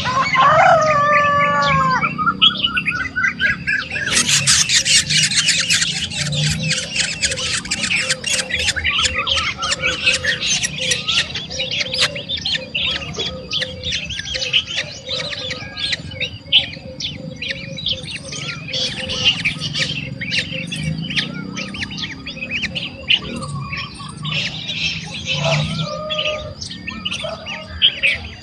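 Small birds at a nest chirping rapidly and continuously, with a few falling whistled calls in the first two seconds.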